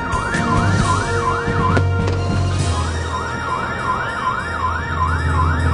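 Electronic dance music: a siren-like synth wailing up and down about three times a second over a steady deep bass, with a short break about two seconds in.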